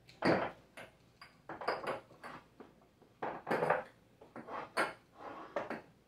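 Jars and containers knocking and clinking together as they are shifted about, someone rummaging through them to find one: a dozen or so irregular clatters and clinks, the loudest near the start.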